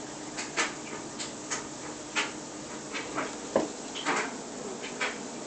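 About a dozen faint, irregular clicks and soft knocks, over a faint steady hum.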